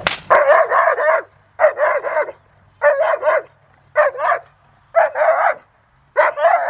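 Large adult dog barking at a protection-training helper in quick clusters of two or three barks, about one cluster a second, with short pauses between.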